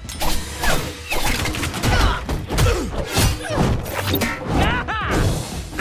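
Cartoon fight sound effects: a rapid run of hits, thuds and crashes as thrown shuriken strike, over background music.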